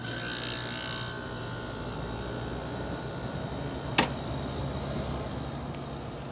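1990 GE 12,000 BTU window air conditioner starting up on cool. It comes on suddenly with a rush of air over a low hum for about a second, then settles into a steady compressor-and-fan running sound. There is one sharp click about four seconds in.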